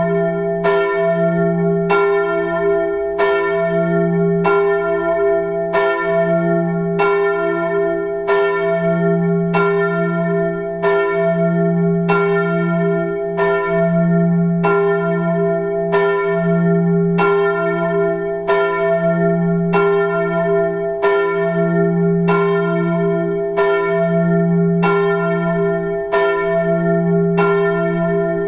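Church bell tolling steadily, about one stroke every second and a quarter, each stroke ringing on into the next.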